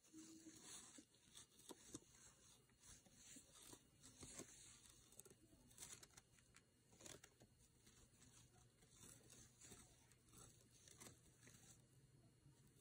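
Faint, irregular rustling and small scratchy clicks of yarn being pulled and looped on a metal crochet hook by hand.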